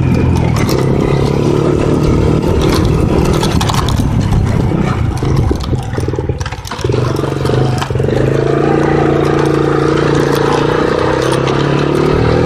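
Four-wheeler (ATV) engine running under way with a steady note. It falls off briefly around the middle, as if the throttle is eased, then picks up again, rising in pitch near the end as it accelerates. Scattered rattles and clicks accompany it.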